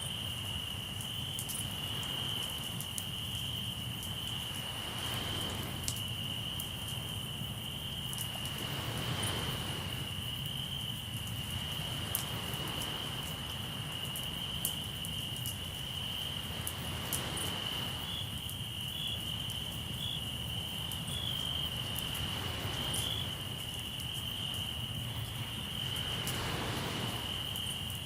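Crickets trilling in one steady high-pitched chorus, with waves washing onto the shore about every four to five seconds and scattered crackles from a campfire.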